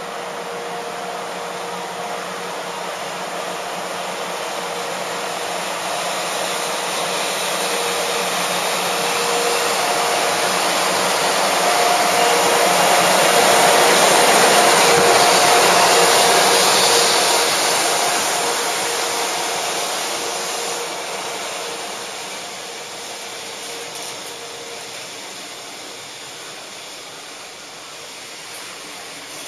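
JR Freight EF64 1000-series DC electric locomotive moving slowly past at close range, its blowers whirring with a couple of faint steady tones, swelling to loudest about halfway through as the locomotive goes by, then fading as the container wagons roll past.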